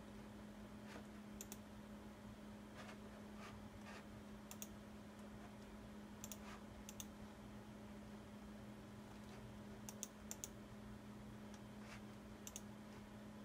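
Faint, scattered clicks of a computer mouse and keyboard, several coming in quick pairs, over a steady low hum.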